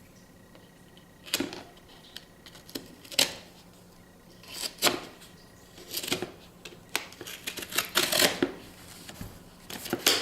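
Packaging of a GoPro Hero 3 camera box being handled and opened by hand: a string of sharp clicks, snaps and rustles of plastic and cardboard, a few seconds apart at first and busier near the end.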